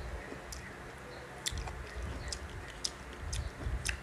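Close-miked chewing of ripe Indian mango slices, with about six sharp wet mouth clicks and smacks spread through the chewing.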